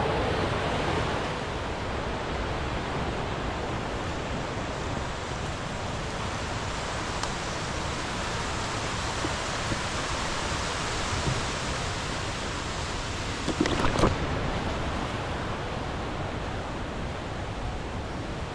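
Steady rushing of a waterfall, an even roar of falling water, with a few short knocks about three-quarters of the way through.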